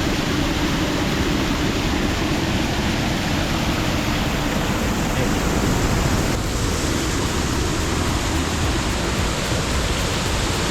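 Waterfall rushing: a steady, loud wash of falling water heard close to.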